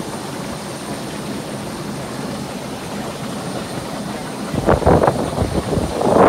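Steady rushing and bubbling of wastewater churned by aeration in a concrete aeration tank. From a little over four seconds in, irregular gusts of wind buffet the microphone on top of it.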